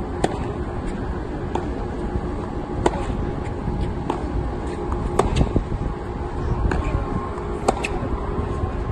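Tennis balls struck back and forth in a baseline rally: sharp racket pops and ball bounces roughly every second and a quarter, the near player's hits louder than the far ones. Under them runs a steady mechanical hum.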